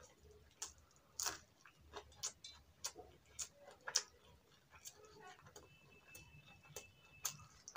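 Close-miked mouth sounds of a man chewing mouthfuls of rice and curry: irregular wet smacks and clicks of lips and tongue, a few every second.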